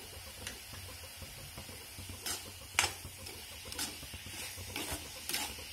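A coconut-and-jaggery modak filling being stirred in a pan on the stove: about five short scrapes of the utensil against the pan, the loudest a little before three seconds in.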